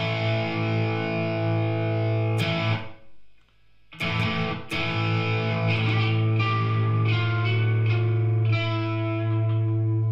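Electric guitar played through an overdriven amp: struck, ringing chords. The sound dies away almost to nothing about three seconds in, then chords are picked again a second later and left to ring.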